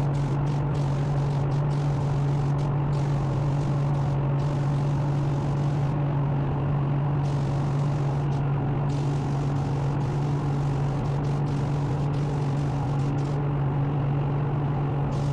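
Steady machine hum with a strong low drone and a noisy hiss over it, unchanging throughout.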